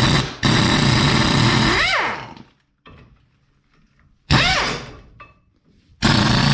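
Pneumatic air impact wrench hammering on a rust-seized brake caliper bolt in three runs: a long burst of about two seconds, a short blip, and another run starting near the end. Its whine falls away each time the trigger is released. The wrench struggles to break the heavily rusted bolt loose.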